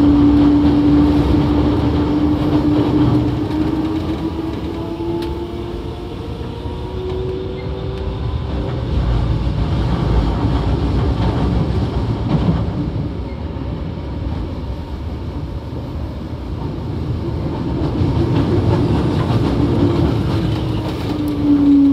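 Toei 5300 series subway train running, the motor and inverter whine rising steadily in pitch as it gathers speed over the first several seconds, over the rumble of the running gear. Near the end the whine falls again as the train slows.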